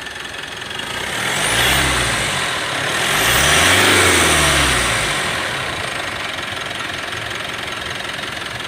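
Mitsubishi Pajero Sport turbo-diesel engine idling, then revved twice from idle, a short blip and then a longer one, before falling back to a steady idle. This is the rev-and-release test for the vibrating noise on throttle release that the mechanic traces to a worn one-way clutch pulley on the alternator.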